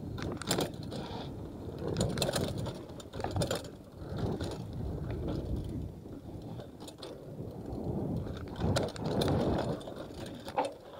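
Mountain bike ridden down a rough trail: a ratchet-like rattling of freehub and chain over a steady rumble of tyres on dirt, with sharp clatters from bumps at irregular moments.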